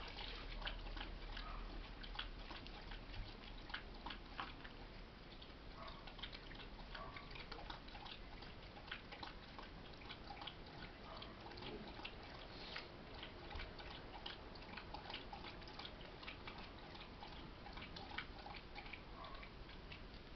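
Faint, irregular small clicks and taps, several a second, over a low background hiss.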